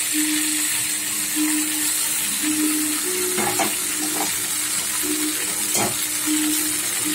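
Penne pasta and onion-tomato masala sizzling steadily in a nonstick frying pan on the gas flame, with a few light knocks of utensils against the pan around the middle. A low hum comes and goes underneath.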